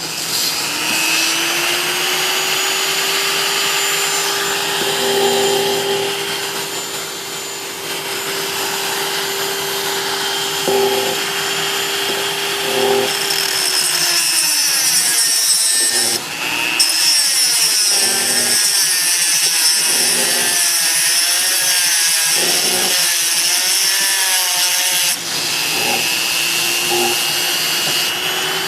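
Dremel rotary tool with a cutoff wheel spinning up and running with a steady whine, then cutting a slot into the stripped head of a carburetor float bowl screw, its pitch wavering and grinding under load through the middle. Near the end it runs freely again with a steady whine.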